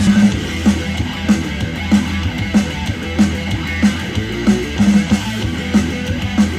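Music with a heavy beat hitting about every two-thirds of a second, played back through a portable Bluetooth speaker in a sound test; this stretch is instrumental, without vocals.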